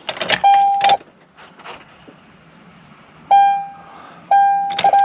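Three electronic beeps at the same pitch, each about half a second long, with sharp clicks around the first and last, as something on the Chevy Silverado with the no-start is switched on. No fuel pump priming hum can be picked out.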